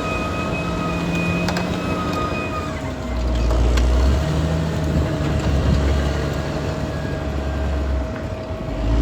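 Caterpillar D6R XL bulldozer running with a steady high whine over its diesel engine. About three seconds in, the whine drops away and the engine's low rumble grows louder in surges as it works under load, with a few sharp clanks.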